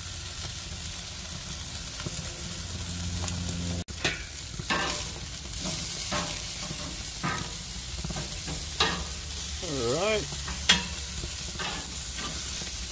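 Jerk chicken pieces sizzling on a barbecue grill's metal grate, a steady hiss with scattered clicks of tongs against the grate as pieces are moved.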